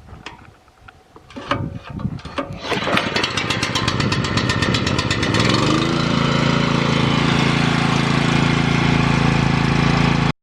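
An engine cranks with a fast, even clatter for about three seconds, catches about five and a half seconds in, and then runs steadily.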